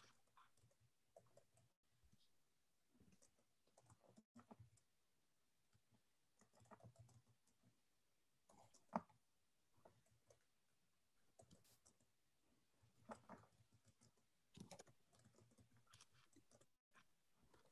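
Near silence: faint room tone from an open call microphone, with scattered soft clicks and small rustling noises and one sharper click about nine seconds in.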